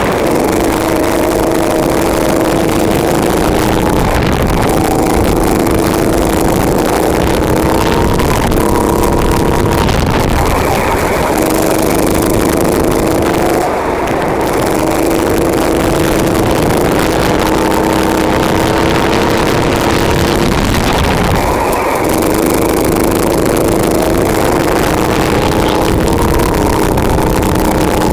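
Go-kart engine heard from the kart itself while it laps, running hard at high revs; its pitch climbs along the straights and drops briefly twice, a little under halfway and about three-quarters of the way through, as the throttle is lifted for corners.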